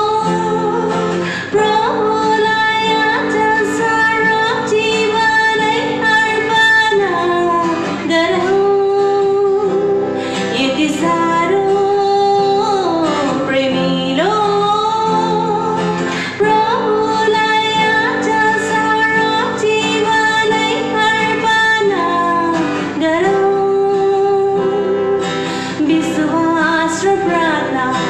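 A woman singing a slow worship song to guitar accompaniment.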